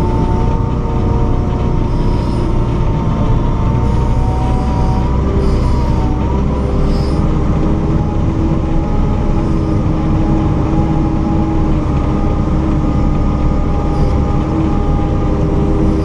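JCB 4CX backhoe loader's diesel engine and drivetrain running steadily while driving, heard from inside the cab: a low drone with several steady whining tones over it.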